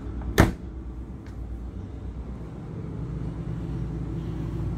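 A single sharp knock about half a second in, typical of a wooden cabinet door being shut, over a steady low hum.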